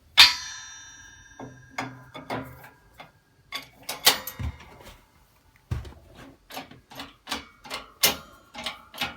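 Steel-on-steel clinks and knocks as a steel knockout pin and the press's metal parts are handled. There is a bright ringing clink just after the start that fades over a second or so, another about four seconds in, and a quicker run of irregular knocks in the second half.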